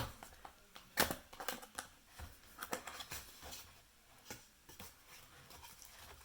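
Cardboard and plastic product packaging being handled and opened by hand: irregular clicks, snaps and rustling scrapes, the sharpest at the start and about a second in.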